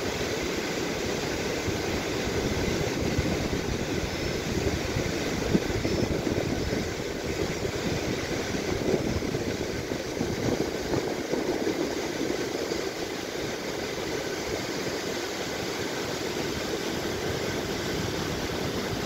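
Steady rushing of a fast, rocky mountain river, an even noise with no pitch or rhythm.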